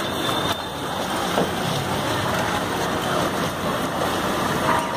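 Steady rushing street noise over floodwater: moving water and traffic blended into one even wash of sound.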